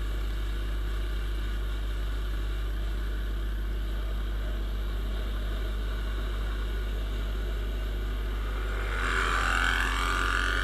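Viper 150 motorcycle's single-cylinder engine running at a steady cruise, heard from the rider's seat with a steady low rumble of riding noise. Near the end, another motorcycle draws close and overtakes, and its engine note grows louder for a couple of seconds.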